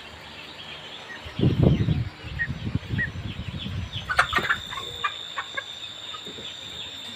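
A flock of month-old broiler chickens clucking and peeping, with a loud low rustle about a second and a half in, a few sharp clicks about four seconds in, and a steady high whine from then on.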